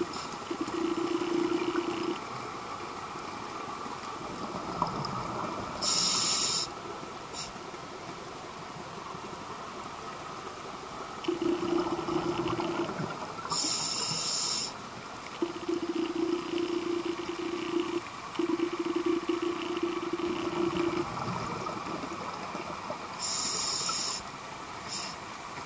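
Underwater sound on a scuba dive: steady hiss with a low hum that comes and goes. Three times, about eight to nine seconds apart, there is a loud rush of a diver's exhaled regulator bubbles.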